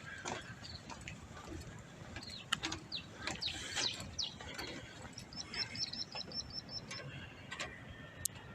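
Small birds calling, faint: a few short high chirps about a third of the way in, then a quick, evenly paced run of about a dozen high notes around the middle.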